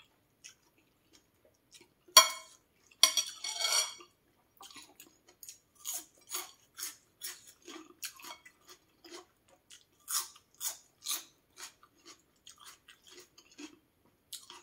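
A person eating noodle soup: loud slurps about two to four seconds in, then steady chewing with soft mouth smacks, about two a second.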